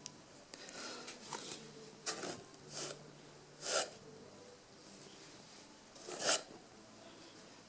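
Cotton clothing rustling as a hoodie and a t-shirt are handled and laid down, in about four short, soft bursts spread over several seconds.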